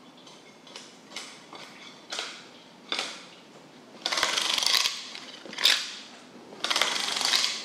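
A large knife working a bluefin tuna carcass on a wooden board. There are several sharp knocks, and in the second half two longer rasping strokes as the blade scrapes along the fish's backbone.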